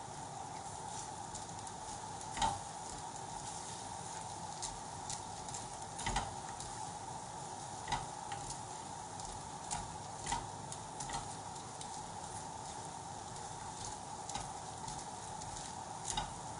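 Wok of peppers and onions simmering in salsa sauce with a steady sizzle, while tongs turning chicken pieces in sauce knock against a glass baking dish in scattered sharp clicks.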